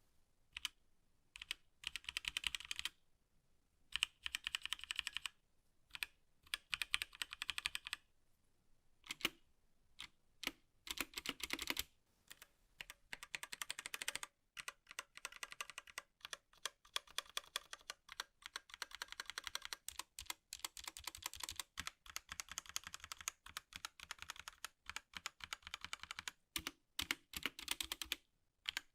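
Typing on a HyperX Alloy Origins Core TKL mechanical keyboard with HyperX Aqua switches: runs of quick key clicks in short bursts with brief pauses, becoming a steady stream of typing about halfway through.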